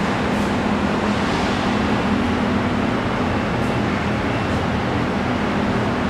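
Steady drone of injection-moulding plant machinery: running electric pump motors and the moulding machine give a continuous hum under a broad, even rushing noise that does not change.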